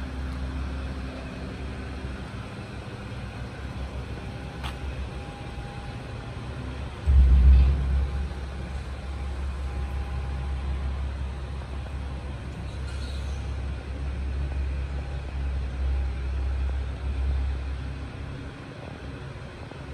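Steady low rumble, with a sudden louder surge about seven seconds in that dies away over the next second.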